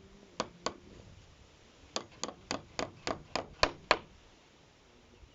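Hammer blows in quick succession: two strikes, a pause of over a second, then a fast run of about eight strikes at roughly four a second that stops about four seconds in.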